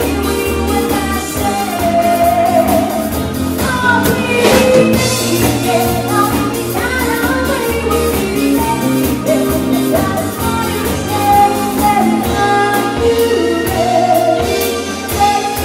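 Live band playing an oldies pop song: a singer over drum kit, bass, electric guitar and keyboard, with a steady beat.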